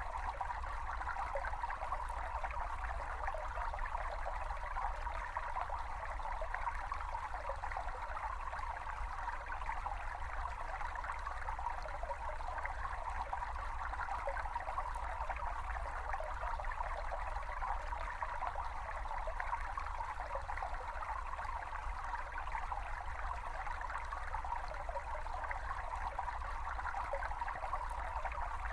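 A small brook babbling and trickling steadily over stones, a recording of natural flowing water with a low rumble beneath.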